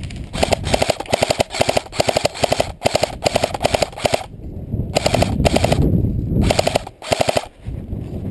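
Airsoft electric gun firing full-auto: a rapid, even chatter of shots in one long burst of about four seconds, then several shorter bursts.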